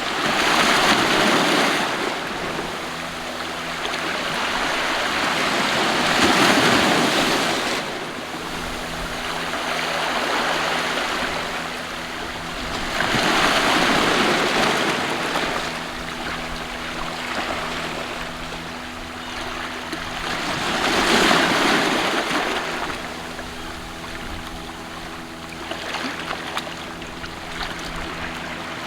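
Sea waves washing in and drawing back, each swell rising and fading about every seven seconds, with a faint steady hum underneath.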